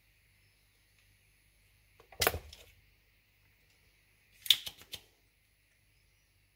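Two short bursts of clicking and clatter, about two seconds apart, from tools being handled while the circuit board is desoldered; the first has more of a low knock in it, the second is sharper.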